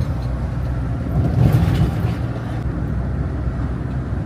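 Motorhome on the move, heard from inside the cab: a steady low engine and road drone, swelling briefly louder about a second and a half in.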